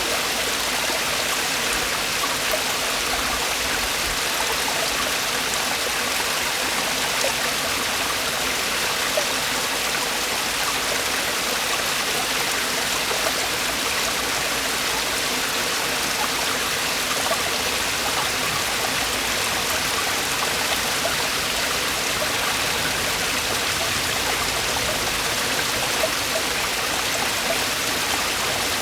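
Mountain stream water falling and rushing over rocks, a steady, even splashing with no pauses.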